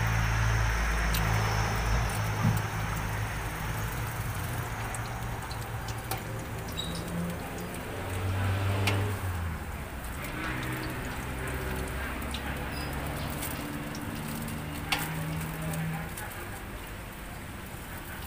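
Skewered meatballs deep-frying in a pot of hot oil, the oil sizzling and bubbling steadily. There are a few light clicks of metal tongs against the pot, and a low engine hum underneath.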